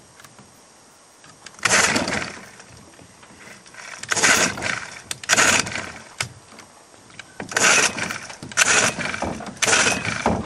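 Wind gusting across the camcorder microphone: about six irregular rushes of noise, each lasting under a second, over a faint steady background.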